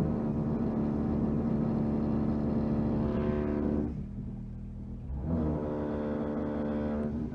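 Electric power tool motor running in two long bursts with a steady whine. It drops back for about a second some four seconds in, then picks up again, and grows harsher briefly about three seconds in.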